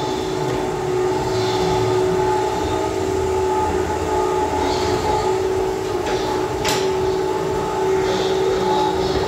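Ghost-train ride car running along its track: a steady rumble with a constant electric hum, and a single sharp click about two-thirds of the way through.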